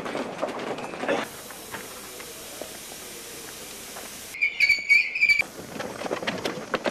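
Crowd shuffle, then a steady hiss of released air from a stopped commuter train for about three seconds. A few short, shrill whistle-like blasts follow, then the bustle of passengers crowding on board.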